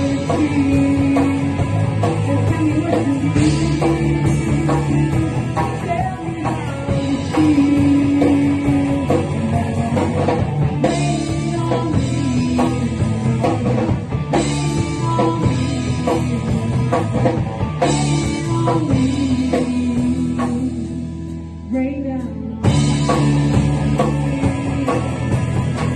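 A rock band playing a passage without sung words: drum kit and guitars under a wandering lead melody. About 21 seconds in the band thins out and gets quieter, then comes back in full a moment later.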